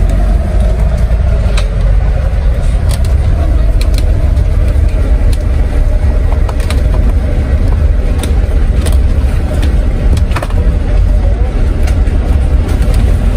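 Coach bus heard from inside while driving: a loud, steady engine and road rumble with scattered light clicks and rattles.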